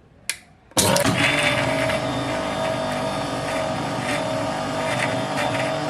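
Navata Thunder 800 W mixer grinder running, grinding green chutney in its small stainless-steel chutney jar: a steady motor whir with a held hum. It starts abruptly under a second in, just after a brief click.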